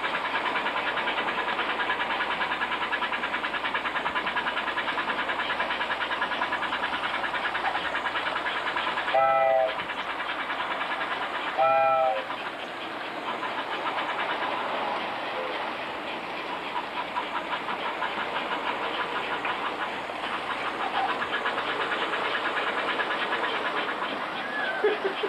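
Vintage American Flyer S-gauge model train running on its track: a steady whir of the motor and wheels with fine rapid clicking. Two short whistle blasts about nine and a half and twelve seconds in.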